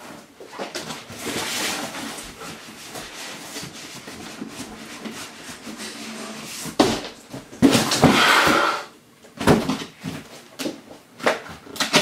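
Cardboard boxes being handled: rustling, then a loud scrape of cardboard on cardboard as a heavy inner box is lifted out of its outer shipping box, with several knocks of the box against the carton.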